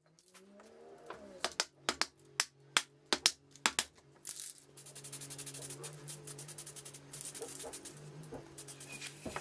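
An aerosol spray-paint can is shaken, its mixing ball rattling in a quick run of sharp clicks, then sprays with a hiss in bursts. Background music with steady tones plays underneath.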